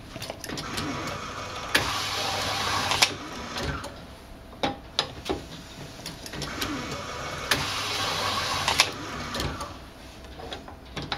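BenchMAX semi-automatic label applicator running twice, each run about three seconds of steady motor-and-roller whirring as the bottle is turned and a label is applied. Sharp clicks come during the runs, and clicks and knocks between them as the glass bottle is handled.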